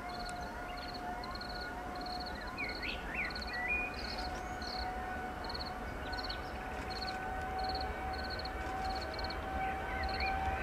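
Boeing 787-9 jet engines at reduced takeoff power during the takeoff roll: a steady whine of two held tones that creep slightly higher, over a low rumble. Birds chirp over it, one repeating a short trilled call about every second.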